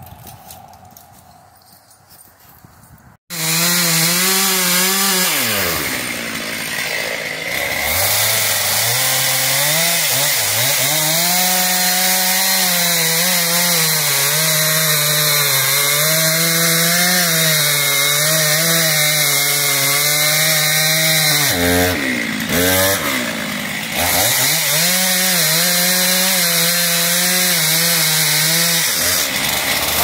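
Gas chainsaw running at high revs while cutting into a tree trunk near its base. Its pitch falls and rises again several times. It starts abruptly about three seconds in, after faint outdoor quiet.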